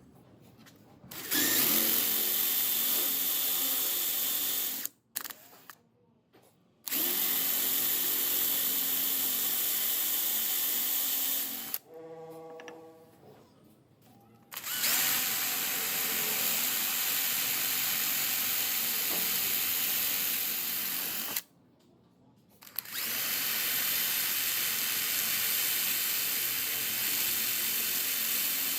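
An electric power tool running in four long bursts of about four to seven seconds each, starting and stopping abruptly, with short pauses between them.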